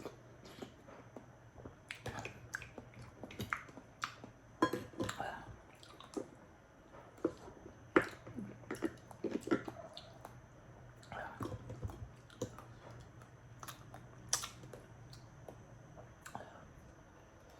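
Close-up sounds of someone eating raw oysters: irregular wet chewing and mouth noises with scattered sharp clicks.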